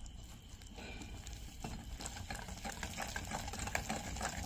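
Wire whisk stirring thick cake batter in a glass bowl: rapid, irregular clicking of the wires against the glass and through the wet batter, starting about a second in and getting busier.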